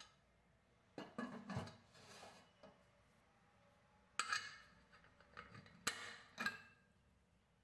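Aluminium pressure cooker lid being fitted onto the pot: a clatter of metal knocks about a second in, then three sharp clicks and clanks from about four to six and a half seconds in as the whistle weight on the vent pipe is handled.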